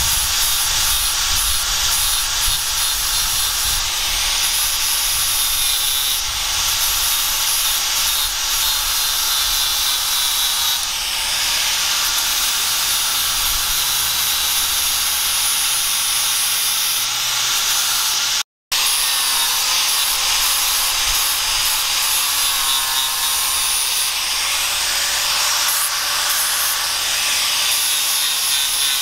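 Handheld angle grinder with an abrasive disc running under load against a leaf-spring steel knife blade: a steady high-pitched grinding hiss over the motor's whine. The sound drops out for an instant about two-thirds of the way through, then resumes unchanged.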